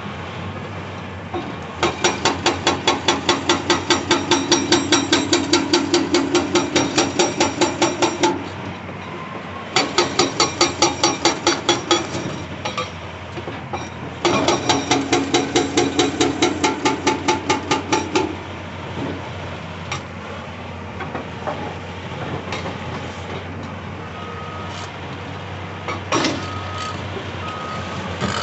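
Hydraulic breaker on a CAT 349E excavator hammering rock in three long bursts of rapid, evenly spaced blows, several a second, with the excavator's diesel engine running steadily between and after them. Near the end a backup alarm beeps.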